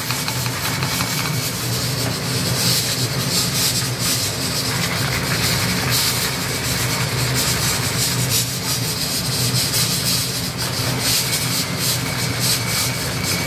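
A handheld electric mixer with a whisk head running steadily in a bowl of ramen broth, a constant motor hum under the churning of the liquid as the soup is whipped into a froth.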